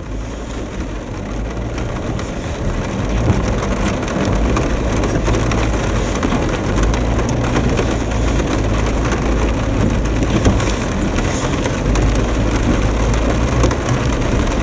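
Jeep Wrangler engine pulling steadily as it crawls up a wet, rocky trail, heard from inside the cab, growing louder over the first few seconds. Rain taps on the windshield and body throughout, as scattered sharp clicks.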